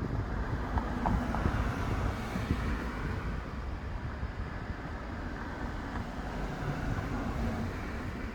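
Strong wind gusting and buffeting the microphone, an uneven low rumble under a steady rushing hiss.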